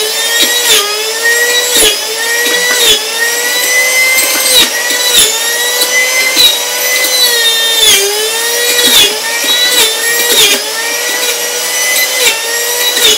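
Sujata electric juicer's motor running at high speed as tomatoes are pressed down the feed tube. Its whine sags in pitch each time a piece loads it and climbs back, every second or so.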